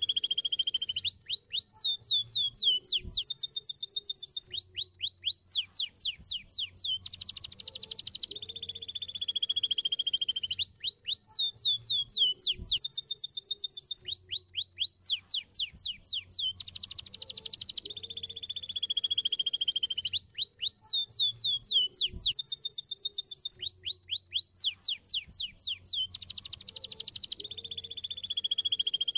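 Domestic canary singing: long rapid trills alternating with runs of quick downward-swooping notes. The same song phrase comes round about every nine to ten seconds.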